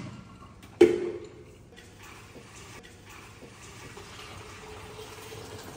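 A sharp clunk with a short ring about a second in, then water running steadily from a tap into a stainless steel sink.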